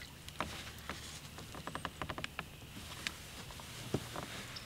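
Fishing reel being cranked in, giving faint light clicks and ticks, with a quick run of them about two seconds in.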